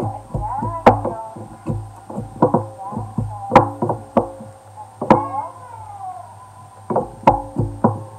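Wooden pestle pounding in a wooden mortar: a run of quick, sharp knocks, about three a second, with short pauses between runs.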